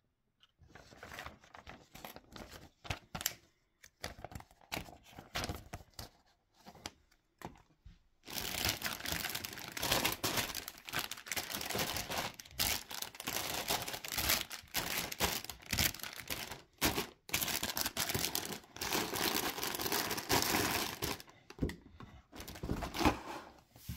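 Paper rustling in short spells as a model-kit instruction booklet is handled. From about eight seconds in, a dense, continuous crinkling of the clear plastic bags holding the kit's runners as they are handled in the box.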